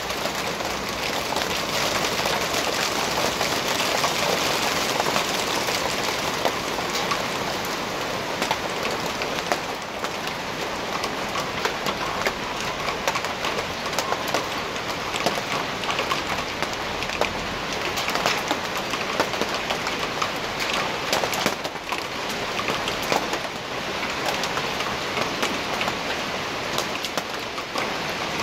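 Hailstorm: hail and rain falling on a street and parked cars, a dense steady hiss studded with many small sharp clicks of hailstones striking.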